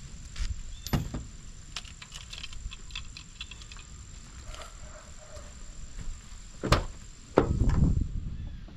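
A few knocks and thuds of handling, with a run of small light clicks a couple of seconds in, a sharp knock near the end and then a heavier, longer thud.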